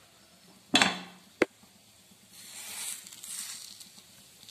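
Semolina-coated Indian mackerel going into hot oil in a pan: a loud burst of sizzling about a second in that quickly dies down, a single sharp click, then a second, softer stretch of sizzling.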